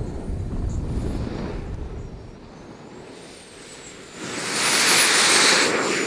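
Jet buggy's jet engine passing close by. A low rumble fades out, then a loud rush of jet noise swells about four seconds in and peaks. A high whine climbs and then drops in pitch as the buggy goes past.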